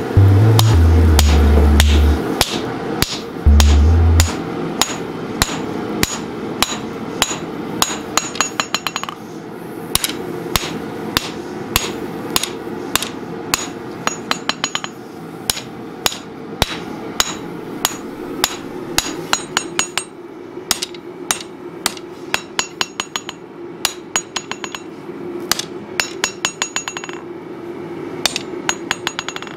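Hand hammer striking a red-hot steel sword blade on an anvil while forging its bevel: a long run of sharp, quick blows, several a second, in bursts with brief pauses, some of them ringing.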